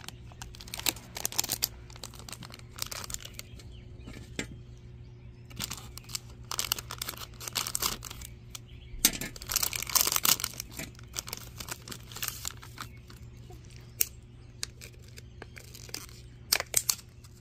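A crinkly printed blind-bag packet crackling as it is handled, then torn open with a dense run of ripping and crinkling a little past halfway. A few sharp crackles of clear plastic wrap come near the end.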